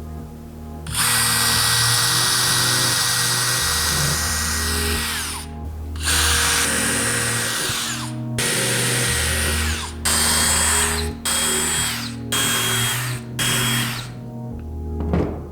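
Electric drill running in bursts: two long runs, then four short ones about a second each, its pitch falling as the motor winds down at each stop.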